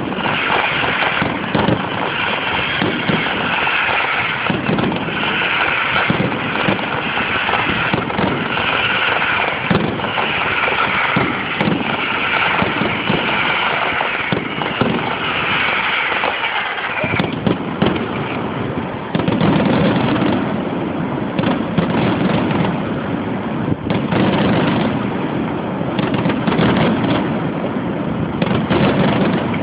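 A fireworks display: aerial shells bursting in a dense, unbroken barrage of bangs and crackle. After about nineteen seconds the bursts grow deeper and heavier.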